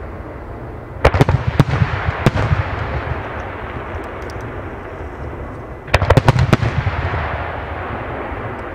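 Aerial firework shells bursting in two volleys of sharp bangs, about a second in and again about six seconds in, each volley trailing off in rumbling echoes.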